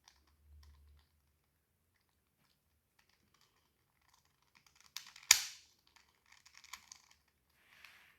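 Plastic clicking of a 2x2 Rubik's cube being twisted by hand, in short scattered clusters, with one sharper knock about five seconds in.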